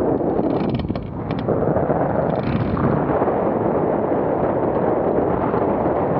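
Wind rushing over the microphone of a camera mounted on a hang glider's wing in flight: a loud, steady roar of airflow.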